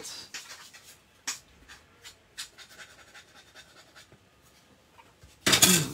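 Faint, scattered rustles and light taps of paper being handled at a craft table, then a brief, much louder rustling burst near the end.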